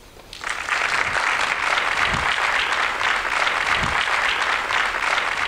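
Audience applause, building up within the first half second and then holding steady, with a few cheers under it. It cuts off abruptly at the end.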